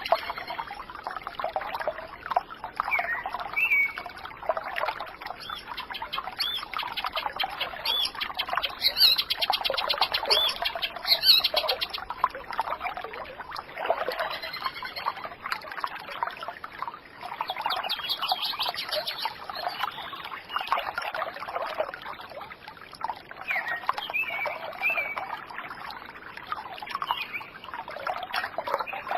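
Water trickling and babbling in a small stream, with birds chirping and giving rapid trills over it several times.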